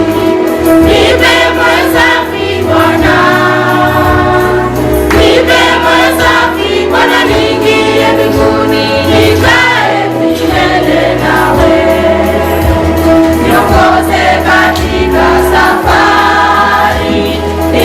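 Gospel music with a choir singing over a steady bass line.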